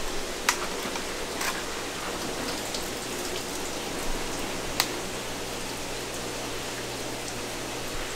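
Tap water running and splashing onto a king crab's shell in a stainless steel sink as the crab is rinsed, a steady spattering hiss. A few sharp clicks of shell or gloves knocking come through it, one clear one about five seconds in.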